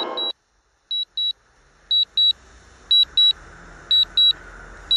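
Drone controller warning alarm: pairs of high beeps, one pair about every second, signalling that the link to the drone has been lost and it is returning home.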